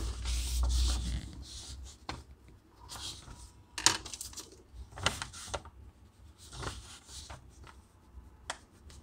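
Sheets of paper rustling and sliding on a wooden table, with a handful of sharp taps and knocks from a pen on the paper; the loudest tap comes about four seconds in.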